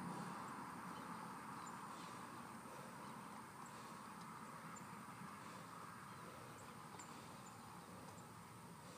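Faint, steady outdoor background hiss with a few faint, short high chirps.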